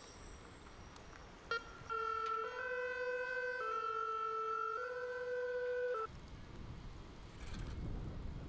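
A two-tone emergency vehicle siren switching back and forth between a low and a high note about once a second. It starts about two seconds in and cuts off suddenly after about four seconds, leaving a low rumble of wind noise.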